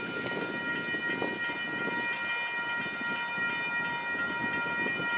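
Freight train cars rolling past, a steady rumble and clatter of wheels on rail, with a steady high-pitched ringing tone over it.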